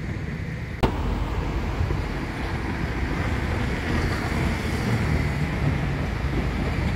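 Steady city street traffic: cars and motor scooters passing on a multi-lane road, with one sharp click about a second in.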